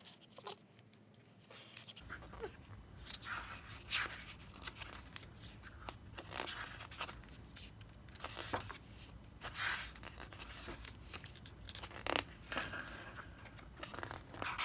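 Pages of a paper photo book being turned by hand, with short scattered rustles and flaps of paper.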